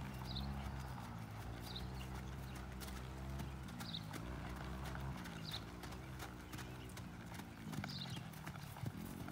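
Hoofbeats of a feathered piebald horse moving at a slow, even gait over grass and dirt, a steady run of soft clip-clop strikes. Under them runs a low hum that slowly rises and falls in pitch, and a short high chirp comes about every second and a half.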